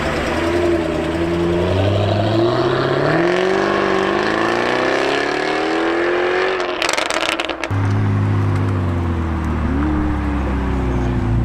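Jaguar F-Type coupé accelerating hard away, its engine note climbing steadily for several seconds. A brief crackling burst follows about seven seconds in, then a McLaren's engine runs at low revs with a quick blip near the end.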